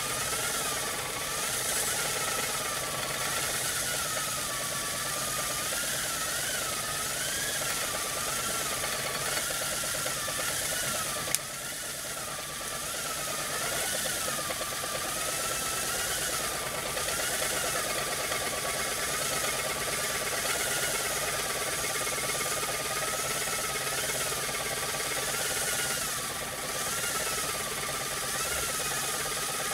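Homemade brass Hero's steam engine (aeolipile) spinning on its steam jets: a steady hiss with a whistling tone that wavers up and down every second or so, over a fine rattle. One sharp click about eleven seconds in.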